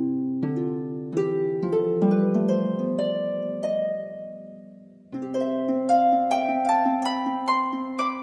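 Soundtrack music on plucked strings: a run of single notes climbing in pitch, dying away about four seconds in, then a new rising run starting about five seconds in.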